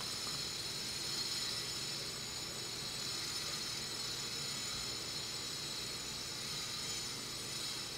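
A steady high-pitched whine over a faint hiss.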